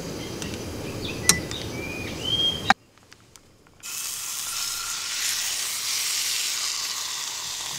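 A low steady rumble with a sharp click, cut off about three seconds in; after a second of near silence, marinated bulgogi beef sizzles in a hot cast-iron skillet, a steady high hiss.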